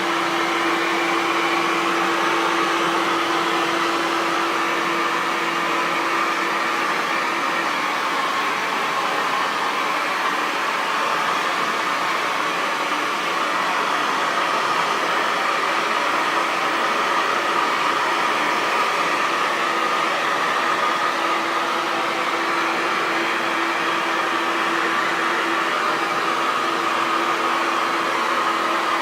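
Hair dryer running steadily: a continuous rush of air with a faint hum that fades about a quarter of the way in and comes back about two-thirds through.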